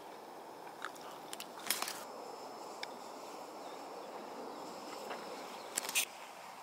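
Golf irons striking balls: two crisp clicks, each a short cluster of sharp snaps, about two seconds in and again near the end, over a steady open-air hiss.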